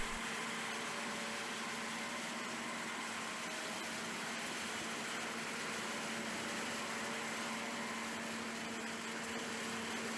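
Steady machinery hum: an even mechanical drone with a constant low tone over a haze of noise, unchanging throughout.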